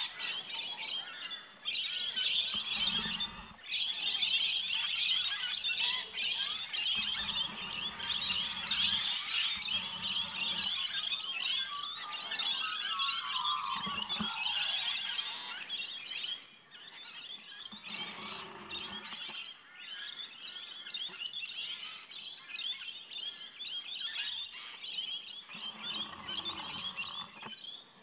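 A flock of lorikeets calling in a dense, continuous, high-pitched chatter. It is busiest for the first sixteen seconds or so and thins somewhat after.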